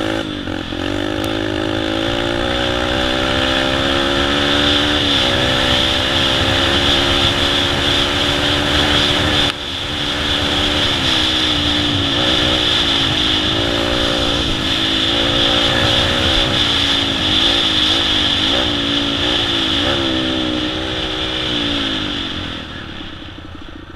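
Yamaha TT-R125's small single-cylinder four-stroke engine with an FMF exhaust, running under load as the bike is ridden. The engine note climbs over the first few seconds, dips briefly about five seconds in, rises and falls with the throttle, and drops away near the end as the bike slows.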